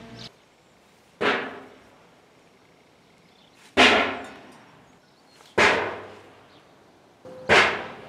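Homemade bird scarer: a hanging scrap metal piece, pulled on a long string, banging against an aluminum drum. Four bangs a couple of seconds apart, each ringing and fading over about a second.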